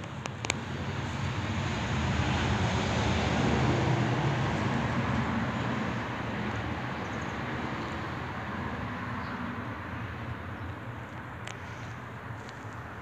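A passing road vehicle's rumble, swelling over the first few seconds and fading away by about halfway through, with a few faint clicks.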